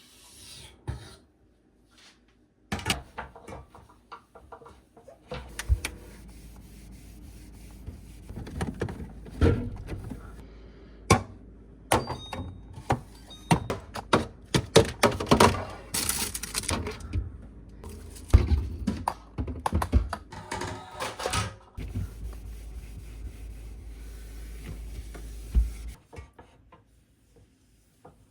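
Irregular knocks, clicks and clatter of household containers and items being picked up and set down, over a low steady hum.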